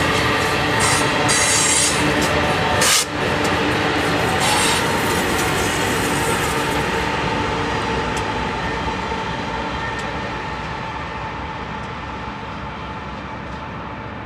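Two BNSF rear-end distributed-power diesel locomotives and the last coil cars of a freight train running past, with steel wheels screeching on the curve. There is a brief sharp crack about three seconds in. The sound fades steadily over the second half as the locomotives pull away.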